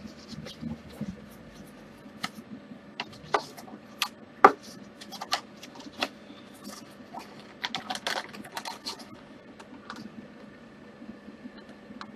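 Origami paper being handled: scattered crisp crackles, clicks and short scrapes, sharpest about four and a half seconds in and busiest between seven and nine seconds.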